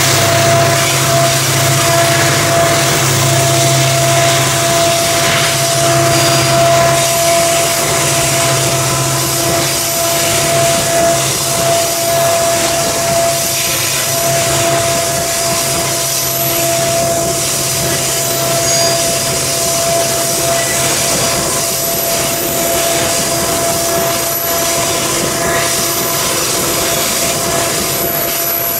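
Loaded coal hopper wagons of a long freight train rolling past on the rails, a steady rumble of wheels. The low engine drone of the lead pair of CC 205 diesel-electric locomotives fades after about ten seconds as they pull away.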